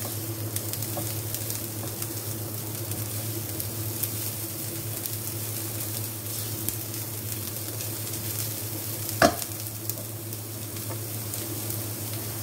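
Chopped capsicum and cabbage sizzling in a little oil in a non-stick kadai while a spatula stirs and scrapes them, over a steady low hum. One sharp knock comes about nine seconds in.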